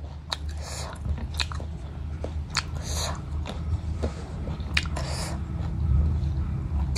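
A person chewing and biting mutton goat head meat close to the microphone: irregular sharp mouth clicks and smacks, spaced a second or so apart, over a steady low hum.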